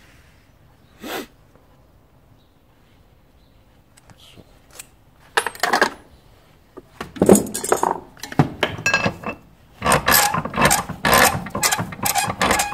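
Hammer taps on a thin metal car trim strip laid on a steel vise plate, heard as sharp ringing metallic clinks. They start about five seconds in and come in quick runs near the end, as the dented strip is knocked straight.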